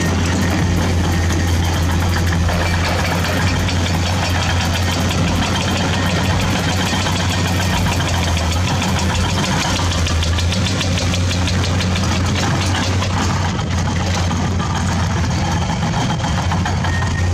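Toy RC excavator giving a steady engine idle sound with a fast, even knocking.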